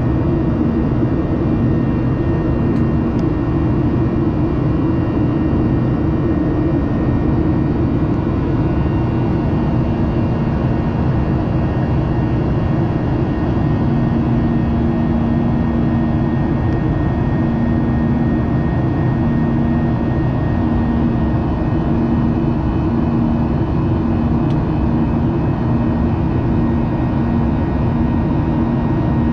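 Steady jet engine and airflow roar heard inside an airliner cabin in flight, with a low steady hum under it.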